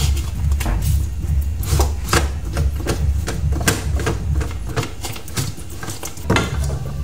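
Slotted metal scraper rasping over the skin of a boiled pig's head, about a dozen quick scraping strokes at an uneven pace, the loudest a little before the end, over background music with a steady bass.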